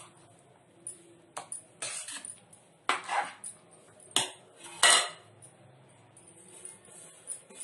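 Steel spoon scraping and knocking against a kadai while stirring thick haleem, in several short clattering bursts, the loudest a little over four seconds in.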